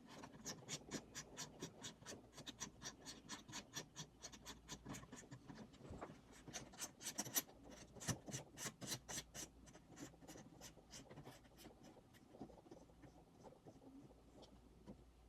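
Quick, fairly regular run of small sharp clicks, about four or five a second, from hands working a part onto a camera rig; it thins out to a few faint clicks about ten seconds in.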